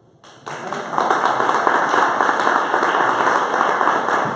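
Audience applauding: the clapping starts a moment in, swells to full strength within about a second, and then carries on steadily.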